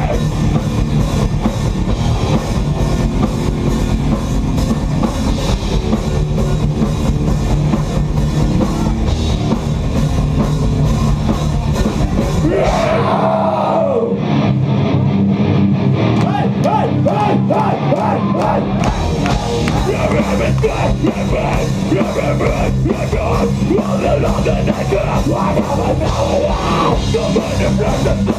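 Live rock band playing loud, heavy rock with drum kit, bass and electric guitar. About 13 seconds in, the drums and bass drop out for roughly five seconds, leaving a guitar on its own, then the full band comes back in.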